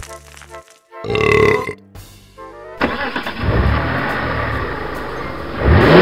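Dubbed comedy sound effects: a short, loud burp about a second in, then a car engine running from about halfway and revving up near the end.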